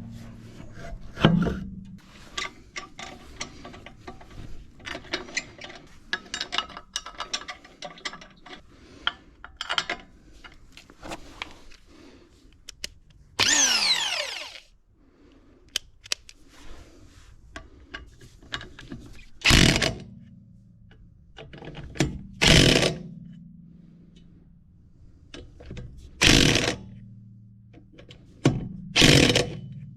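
Parkside PDSSE 550 A1 corded electric impact wrench run in short bursts of about half a second, four times in the second half. Near the middle its motor winds down with a falling whine. Before that come many light clicks and knocks.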